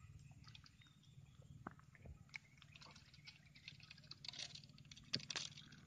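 Near silence: faint scattered ticks and light water sounds around a small boat, growing busier about four seconds in.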